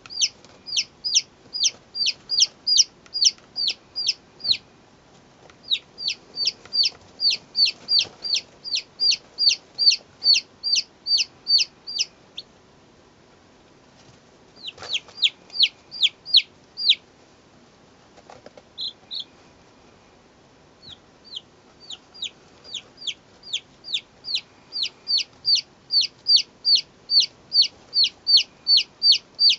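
Day-old Light Sussex chicks peeping: a steady run of loud, high peeps, each falling in pitch, about three a second. The peeping breaks off twice in the middle, with a few soft chirps in the second gap, and then starts up again.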